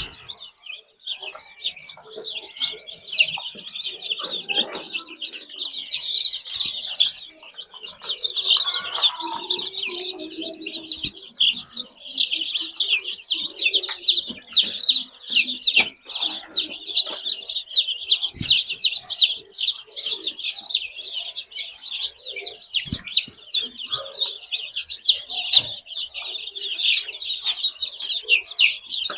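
A crowd of chicks peeping: many short, high chirps overlapping into a continuous chorus, with a few lower, fainter sounds around ten seconds in.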